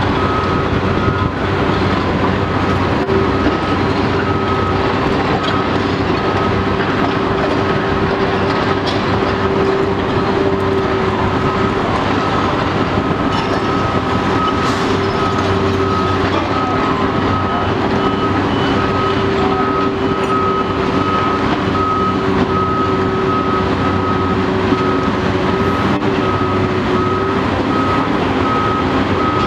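Steady din of heavy construction machinery with engines running: a constant low drone and hum, and a high beep repeating rapidly and evenly throughout. The hydraulic hammer is not striking.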